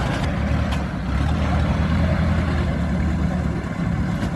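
Diesel engine of earthmoving machinery running steadily with a low rumble, with a couple of light clicks in the first second.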